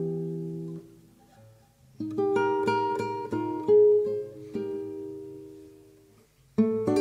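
Solo acoustic guitar music. A chord rings and fades almost to silence. A phrase of plucked notes starts about two seconds in and dies away, and a new phrase begins near the end.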